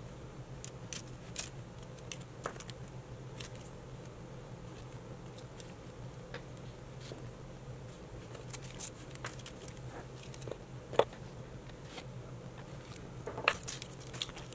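Clear plastic nail tips clicking and clattering against each other and the table as they are picked through and tried for size, in scattered light ticks with a few sharper clicks, over a faint steady hum.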